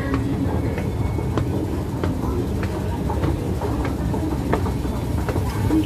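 A moving escalator running, heard from on board: a steady low rumble with scattered light clicks from the steps and machinery.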